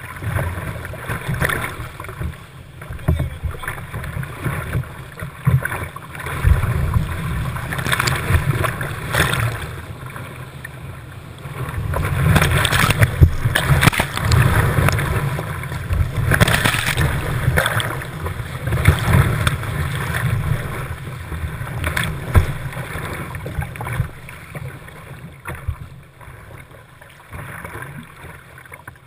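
Whitewater rapids rushing and splashing around a kayak, heard from a camera on its deck, with low rumbling buffeting on the microphone. About twelve seconds in, the water grows louder as waves wash over the boat and camera, then eases off over the following seconds.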